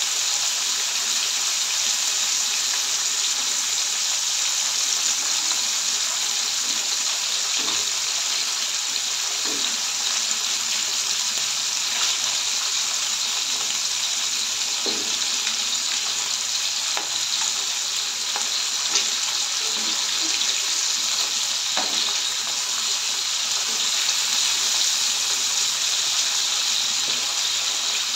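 Fish steaks shallow-frying in hot oil in a nonstick pan: a steady sizzle with scattered small crackles and pops.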